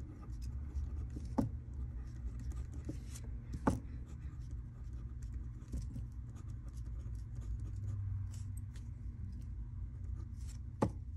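Pen writing on paper: faint scratching strokes as letters are formed, with a few sharper ticks of the pen tip, about a second and a half in, near four seconds, and near the end.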